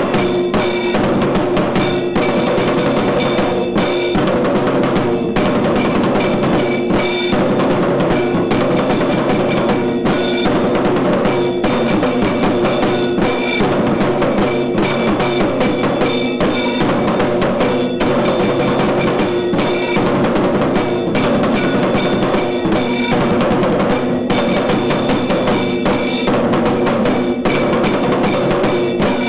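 Tiru Kailaya Vadyam, the traditional Tamil Shaivite temple percussion ensemble, playing dense, rapid, continuous drumming with steady ringing tones held over the beat.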